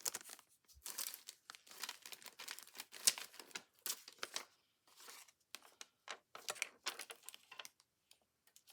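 Paper crinkling and rustling as it is handled, in many short, irregular crackles.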